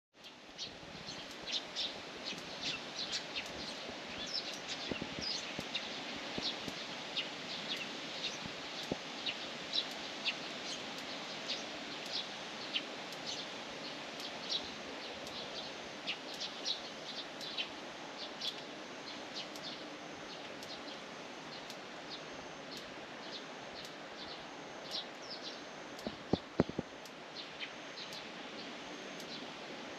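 Small birds chirping, many short high calls over a steady background hiss of outdoor ambience. A few sharp clicks sound about 26 seconds in.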